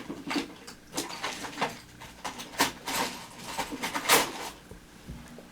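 Irregular small clicks, taps and knocks of tools and small parts being handled on a work surface, as tweezers are fetched to pull the padlock's pins.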